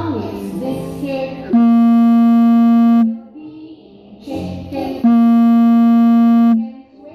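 A children's song playing, broken by two long, loud, buzzy synthesizer notes, each held for about a second and a half and starting and stopping abruptly, about two seconds apart.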